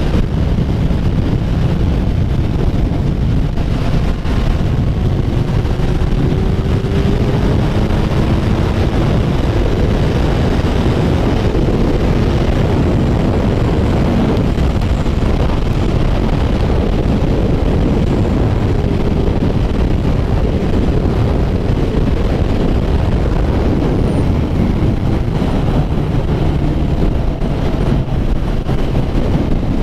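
Kawasaki Ninja 1000 motorcycle running at highway cruising speed, its engine note a faint, slowly shifting pitch under a heavy, steady rush of wind over the helmet-mounted microphone.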